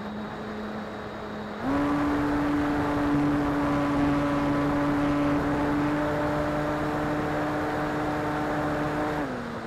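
Electric motor and propeller of an RC plane, heard from its onboard camera over wind noise: a steady hum that jumps up in pitch and loudness about a second and a half in as the throttle opens. It holds there and drops back down near the end.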